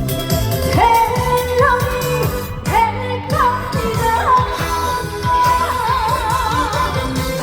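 Korean trot song performed live: a woman singing a melody over a pop backing track with a steady beat, ending the phrase on a long held note with wide vibrato.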